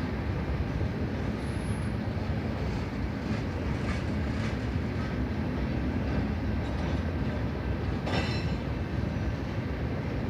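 CN freight train rolling past, a steady rumble of wheels on rail with a few faint clacks and a brief sharper sound about eight seconds in.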